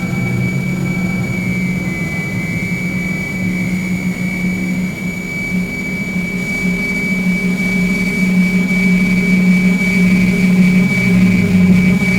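Soma Laboratories Lyra-8 analog synthesizer playing a dark, noisy drone. A steady low tone and a high tone are held together; the high tone dips slightly in pitch about two seconds in. The drone grows a little louder toward the end.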